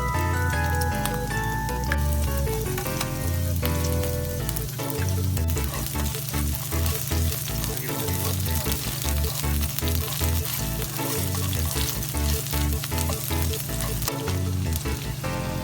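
Vegetables sizzling in hot oil in a frying pan as they are stir-fried, with a dense, steady crackle; background music plays over it.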